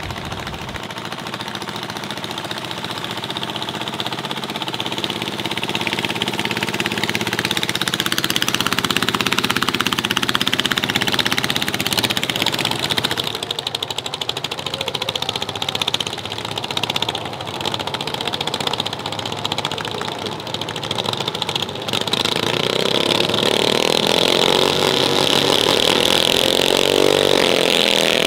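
Loud engines of modified racing rice tractors running and revving. The sound builds over the first several seconds, eases off somewhat in the middle, and gets louder again about 22 seconds in.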